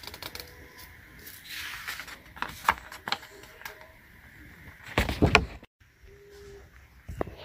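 Sheets of printer paper being handled and turned over: rustling and crisp flicks of paper, with a cluster of louder knocks about five seconds in.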